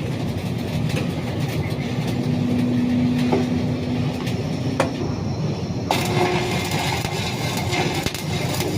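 Steady drone of heavy machinery with a low rumble and a held hum. About six seconds in, a bright crackling hiss suddenly joins it and carries on.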